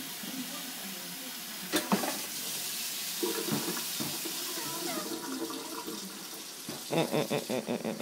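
Kitchen tap running steadily into a frying pan in a sink while an Indian ringneck parakeet bathes under it. There is a single knock about two seconds in. Near the end comes a quick run of splashing as the bird flaps its wings in the water.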